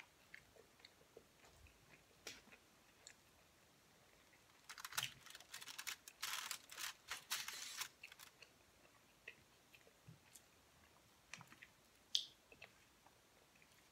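Quiet chewing of sushi rolls, with small mouth clicks. About five seconds in there are three seconds of crisp crackling.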